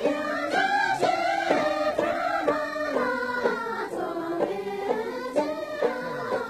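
A group of women singing a Dolpo sharbo dance song together, in long notes that bend up and down.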